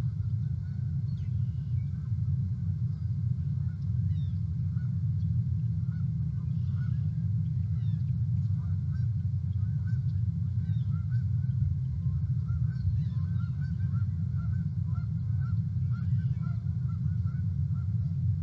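Geese honking faintly, a loose run of short calls that gets busier in the second half, over a steady low rumble that is the loudest sound.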